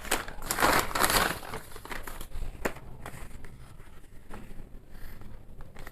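Packaging crinkling and rustling as it is opened by hand. The rustling is loudest in the first second, then turns to lighter rustles and a few small clicks.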